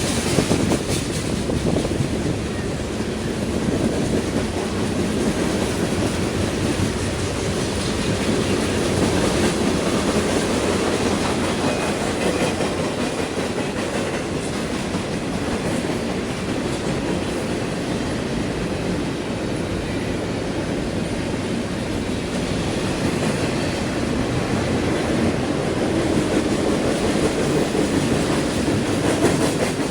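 A train passing close by, its wheels running steadily on the rails with no break and no horn.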